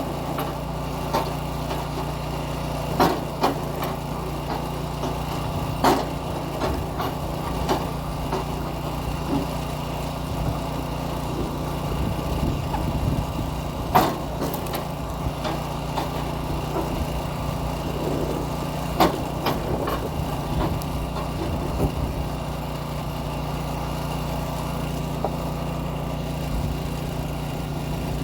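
Small gasoline engine of a kinetic log splitter running steadily, with several sharp knocks a few seconds apart, the loudest about halfway through.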